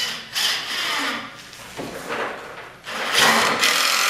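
Power drill driving a screw into log furniture: a few short bursts of the drill, then it runs steadily from about three seconds in as the screw pulls the part down to seat.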